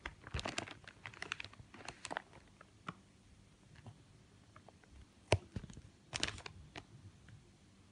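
Plastic courier mailer bag crinkling as it is handled, in bursts of sharp crackles: a flurry in the first two seconds, one loud crack a little past five seconds, and another flurry just after six.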